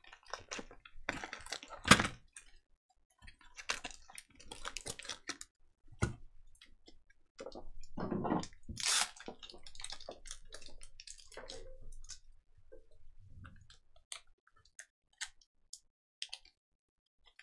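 Scattered clicks, knocks and rustling from objects being handled, with a sharp click about two seconds in, a knock about six seconds in and a longer rustle around eight to nine seconds.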